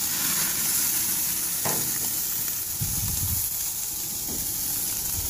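Ribeye steaks sizzling steadily on the hot grates of a gas grill, with one sharp metal click from the grilling utensil about a second and a half in.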